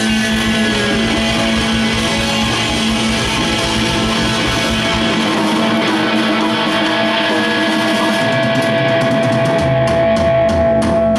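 Live rock band with no bass player playing loud, with electric guitar and a drum kit. From about eight seconds in, a run of fast drum hits builds over the guitar.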